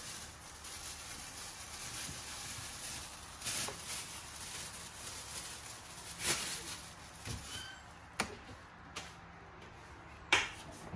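A few scattered light knocks and clicks over a steady low hiss, from handling food at an open refrigerator.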